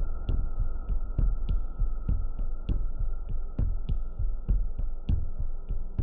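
Ambient background track: low throbbing thumps, two to three a second, under a steady high hum, with light ticks above.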